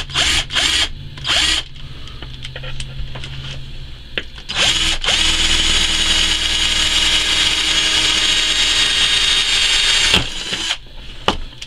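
Black & Decker power drill boring a large bit down through an empty disposable lighter held in pliers. A few short bursts of the motor at first, then a steady run that gets louder about four and a half seconds in and stops suddenly about ten seconds in.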